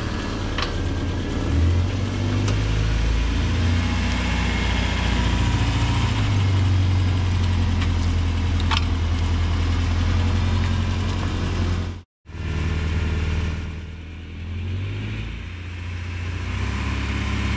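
Mercedes T1 310 van's petrol engine running at low revs while the van creeps on levelling ramps, the revs rising and falling a little. The sound cuts out abruptly for a moment about twelve seconds in, then the engine runs on more quietly.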